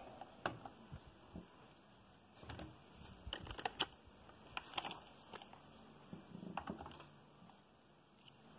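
Faint, scattered clicks and light metallic taps of small tools and parts being handled. They are most frequent in the middle, in short clusters.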